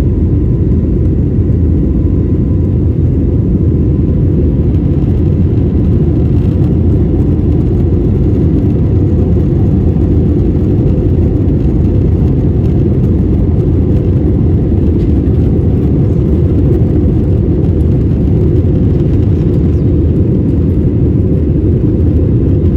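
Steady cabin noise of a jet airliner in flight, heard from a window seat over the wing: an even, dense low rumble of engines and airflow.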